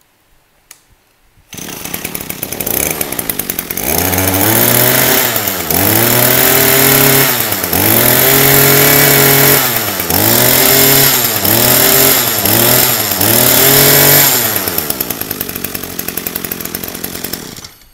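Echo 22cc two-stroke brush cutter engine starting about a second and a half in, running at idle, then revved up and down about seven times before dropping back to idle and stopping near the end.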